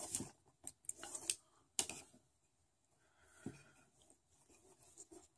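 Nylon 550 paracord being pulled through a loop on a braiding jig: short rubbing swishes of cord against cord, several quick ones in the first two seconds, then a faint last one about three and a half seconds in.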